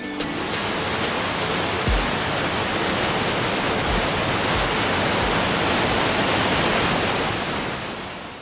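Waterfall's falling water rushing steadily, fading out near the end.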